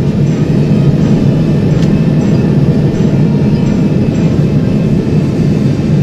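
Loud, steady low rumble of a burning oil-well blowout, the fire and escaping gas going without a break.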